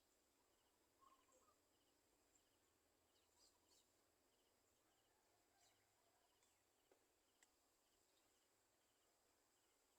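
Near silence: faint outdoor ambience with a steady high insect hum, a small chirp repeating about twice a second, and a few faint, brief bird calls.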